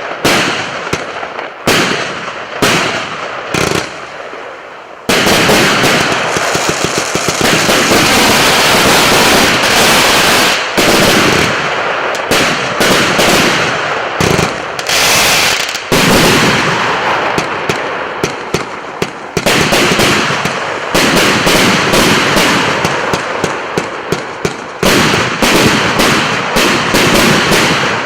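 Multi-shot firework cake firing: separate launches and bangs for the first few seconds, then a dense, rapid volley of shots and crackling from about five seconds in.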